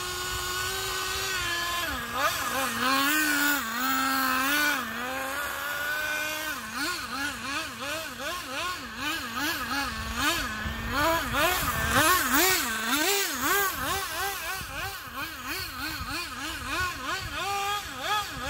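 Nitro engine of a Traxxas Nitro 4-Tec RC car running while the car is drifted. The pitch wavers slowly at first, then from about a third of the way in rises and falls about twice a second as the throttle is blipped.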